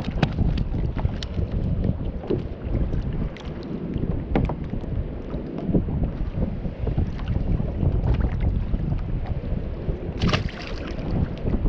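Wind buffeting the microphone over small waves slapping against a kayak's hull, with scattered small clicks and taps. About ten seconds in there is a short splash as a released fish hits the water.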